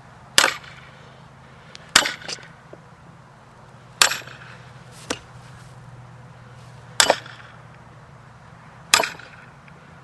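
Hatchet blade striking into the end grain of a maple log, scoring a line that will guide the wedge split: five sharp strikes about two seconds apart, with a couple of lighter knocks between them.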